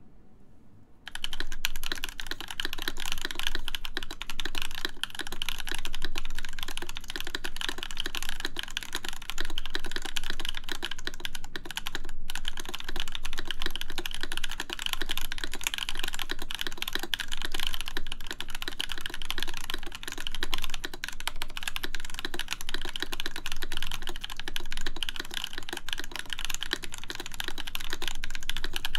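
Continuous typing on a full-size mechanical keyboard with lubed JWK Camping Life switches, an aluminium plate and MW Retro Lights keycaps: a dense stream of keystrokes that starts about a second in, with one brief pause near the middle.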